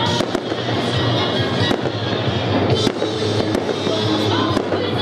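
Aerial firework shells bursting, about half a dozen sharp bangs spread over a few seconds, over music.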